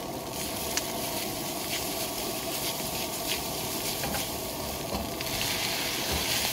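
Noodles and shredded cabbage sizzling in a large wok over a gas flame as a metal ladle stirs and tosses them, with short clicks of the ladle against the wok. The hissing grows louder about five seconds in.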